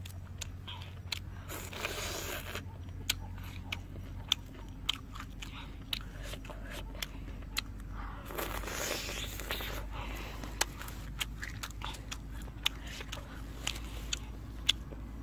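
Close-up eating of grilled tiger prawns: chewing with many short, sharp crunches as the prawn shells break between the teeth.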